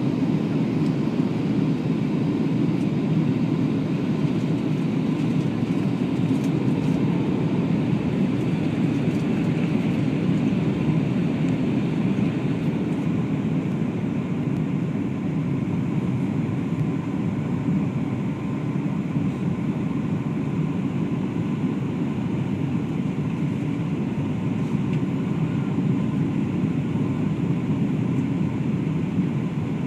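Steady cabin noise inside a Boeing 737-700 in flight: the drone of its CFM56-7B engines blended with airflow rushing past the fuselage, with a faint higher hiss that eases off about halfway through.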